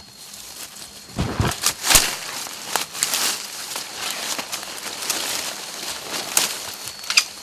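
Dry leaf litter and bamboo stems rustling and crackling as a bamboo shoot is pulled from a bamboo clump by hand, with a few heavier knocks between one and two seconds in.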